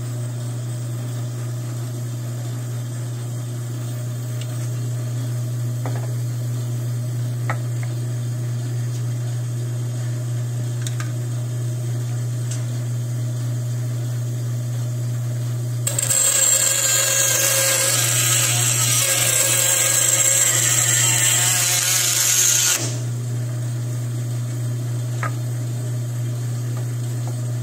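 Bandsaw motor running with a steady low hum, with a few light clicks of handling. About sixteen seconds in, the blade cuts through hardened plastic pipe for about seven seconds: a louder cutting noise with a high whine. Then the saw runs on with only the hum.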